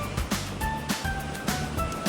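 Background music: an upbeat track with a steady quick beat, a bass line and a light melody of short notes.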